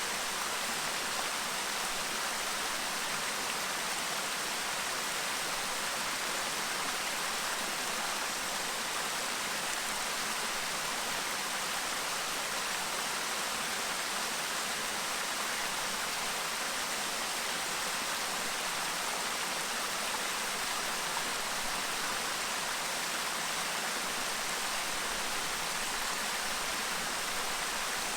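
Clear stream babbling over rocks: a steady, unbroken rush of flowing water.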